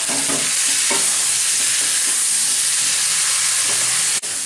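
Potatoes, onions, green chillies and tomato sizzling in oil in a kadai while a wooden spatula stirs and scrapes them against the pan, the sautéing (koshano) stage of the curry. A steady frying hiss with irregular soft knocks of the spatula, breaking off for an instant near the end.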